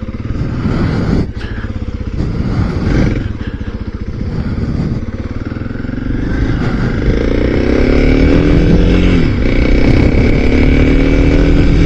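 Kawasaki KLX300 single-cylinder four-stroke engine running under way, picked up by a microphone inside the rider's helmet. Its pitch rises as it accelerates from about six seconds in, dips briefly near nine seconds, then holds steady and louder.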